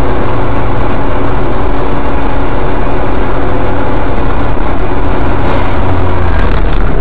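Loud, steady engine drone and road noise inside a moving car, picked up by the dashcam's microphone, with several steady hum tones over a dense rushing noise.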